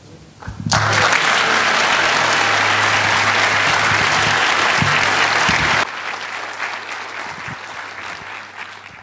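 Audience applauding. The clapping starts about a second in and holds steady, drops abruptly about six seconds in, then dies away near the end.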